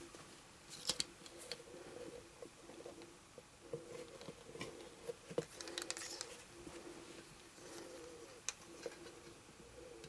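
Faint handling noises of vinyl doll parts and a plastic-handled hook tool: scattered light clicks and rustles, over a faint low hum that comes and goes.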